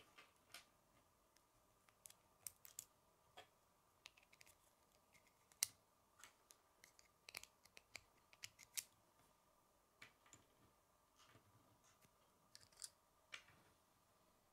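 Hard plastic K'nex pieces handled and fitted together: scattered light clicks and taps, irregular and quiet, with the sharpest click about five and a half seconds in and a cluster of them around eight to nine seconds.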